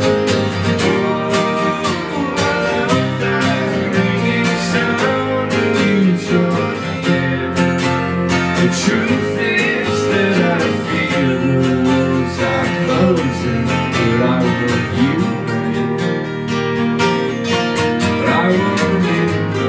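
Two acoustic guitars strummed together in a live, drumless acoustic band performance.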